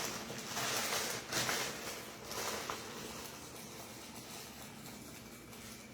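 Soft rustling and handling noises, a few short scuffs in the first couple of seconds, then only a faint steady hiss.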